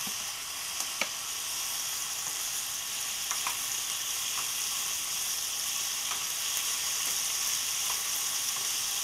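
Thinly sliced steak, onion and peppers sizzling steadily in olive oil in a small non-stick pan on high heat, with a few faint clicks.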